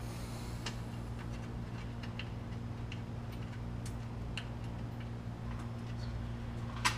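Scattered light clicks and taps of hands fitting a front-mount intercooler and its bolts, with one sharper click near the end, over a steady low hum.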